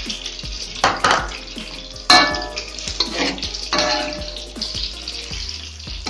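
A metal spatula scraping and knocking against a wok as squid is stirred into a thin, watery chilli sauce, with a few sharp clinks. Background music plays along.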